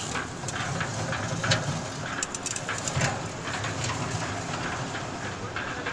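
Construction-site noise during a concrete slab pour: repeated short scrapes and knocks of work on wet concrete over a steady low machine hum.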